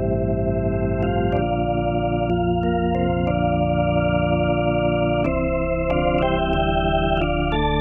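Roland VR-09 keyboard playing an organ patch: sustained chords that change about once a second, with small clicks at each chord change.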